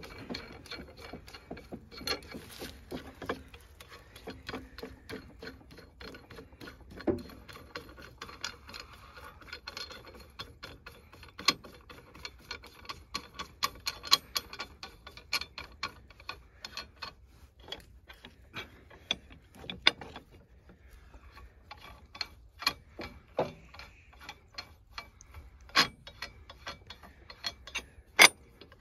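Rapid, uneven metallic ratchet-like clicking as a nut or handle is turned on the threaded tie rod of a track pin press, with a few louder clacks near the end.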